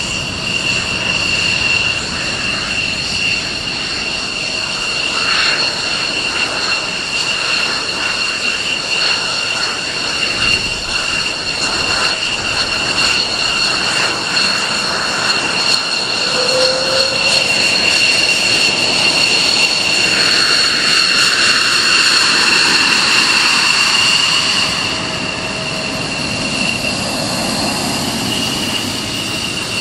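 F-16 fighter's jet engine running at taxi power: a steady high-pitched whine over a rushing noise, which swells louder about two-thirds of the way in and drops back a few seconds later.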